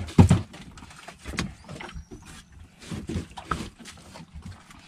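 Fish being handled in a styrofoam cooler: one loud knock about a quarter second in, then irregular softer knocks and rustling as the fish are lifted and set back in.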